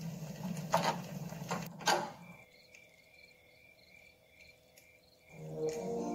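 Fireplace crackling with a low rumble and two sharp pops in the first two seconds, then crickets chirping steadily. Music comes in near the end.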